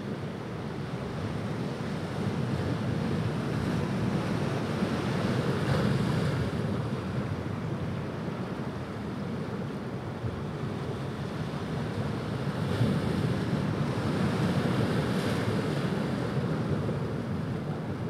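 Ocean waves breaking as surf, a continuous rushing wash that swells louder twice: about five seconds in and again past the middle.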